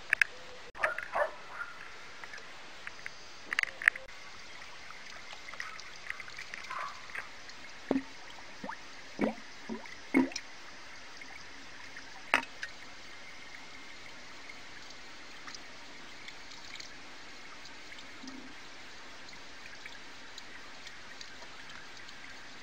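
Small garden pond water trickling and dripping, with a few short splashes and knocks in the first half over a steady faint hiss.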